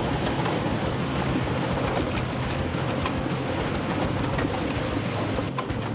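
Wood splitter running: a steady low engine hum that drops out briefly a few times, with scattered sharp clicks.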